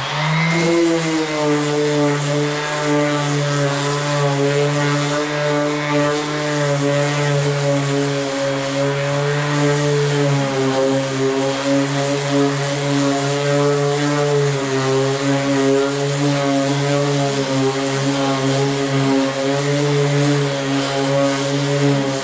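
Variable-speed power sander spinning up and then running steadily while sanding the repaired body panel.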